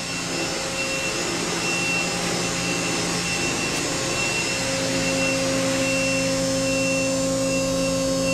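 Steady hum of a powered-up Okuma & Howa Millac 630H horizontal machining center, with a high tone pulsing on and off at a regular pace. A lower whine joins about halfway through.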